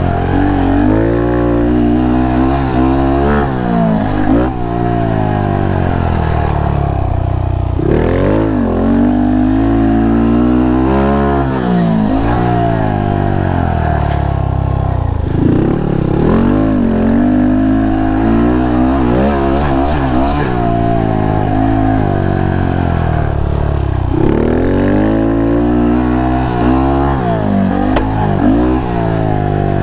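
A 2019+ Honda Monkey's 125 cc single-cylinder engine through a Termignoni full stainless exhaust, ridden hard. The revs climb and drop back again and again as it goes through the gears, with a rising then falling pitch every few seconds.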